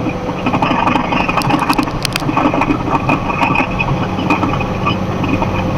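Engine and road noise inside a box truck's cab while it drives on the interstate: a steady low hum with a few light rattles.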